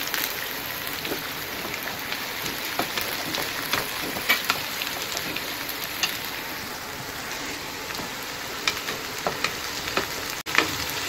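Sliced onions sizzling in hot oil in a wok, being sautéed toward golden brown, with a steady hiss. A wooden spatula stirring them gives occasional sharp taps and scrapes against the pan.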